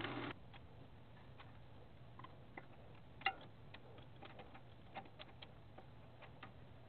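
Wood lathe motor cuts off just after the start. Then scattered light clicks and ticks, one sharper click a little past the middle, from the lathe chuck being worked with its chuck key while the bowl is taken off and remounted.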